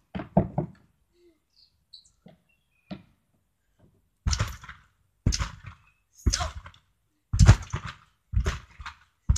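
A child bouncing on a garden trampoline. A few quick thumps near the start, then from about four seconds in a steady thud about once a second as she lands on the mat.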